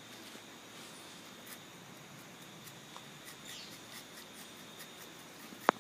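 Hornbill rubber-tapping knife shaving a thin strip of bark along the tapping cut of a rubber tree: faint scratching and small ticks, with one sharp click near the end.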